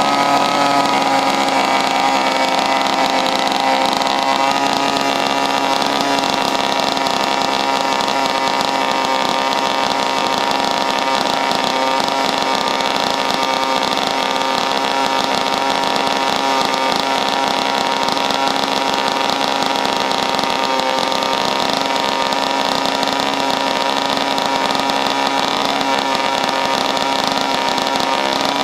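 Chainsaw engine running steadily at a constant speed while it drives a homemade chainsaw popcorn popper. Its pitch wavers a little in the first few seconds and then holds steady.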